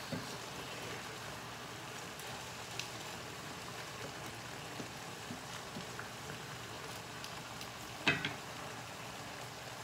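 Yellow squash and onions sizzling in bacon grease as they cook down, a steady hiss with a few small clicks. A single sharp knock, the loudest sound, comes about eight seconds in.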